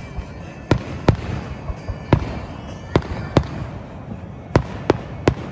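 Aerial fireworks shells bursting: about eight sharp bangs at irregular intervals, some in quick pairs, over a steady background murmur.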